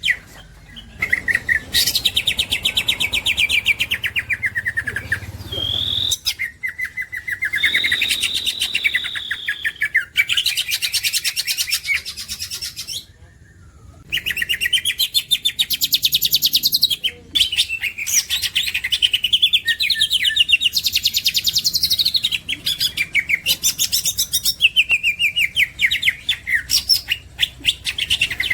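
Cucak ijo (green leafbird) singing a long, fast song of rapid chattering trills and whistled glides, with a brief break about halfway through.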